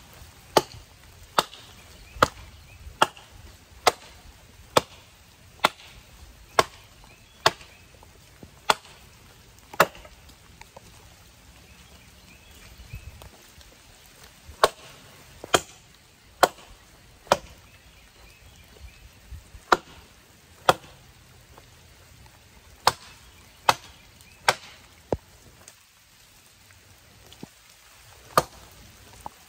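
Hults Bruk 24-inch bushcraft axe chopping into the trunk of a standing sapling: sharp strikes about one a second for a while, a pause of a few seconds, then further strikes in short runs.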